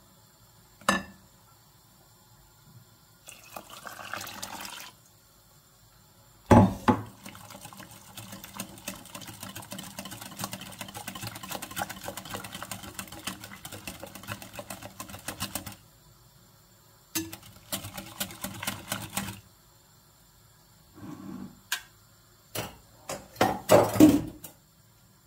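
Wire whisk beating a liquid mixture in a glass bowl: rapid clicking of the wires against the glass with sloshing, in several spells with short pauses between them, the longest lasting about nine seconds in the middle. A sharp knock about a second in.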